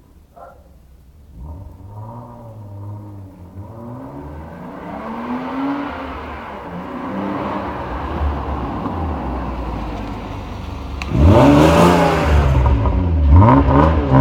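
BMW E36 325i straight-six engine and exhaust revving, pitch rising and falling as it gradually gets louder. About eleven seconds in it turns suddenly much louder, with several quick rises and falls in engine pitch.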